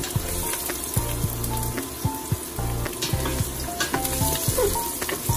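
Chopped garlic and onion sizzling in hot vegetable oil in a stainless steel pot. A spatula clicks and scrapes against the pot as the pieces are stirred.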